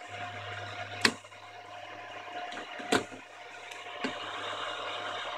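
Three sharp handling clicks, a second or two apart, as multimeter test probes and the camera are handled over the live power supply board, with a steady low hum and faint hiss underneath.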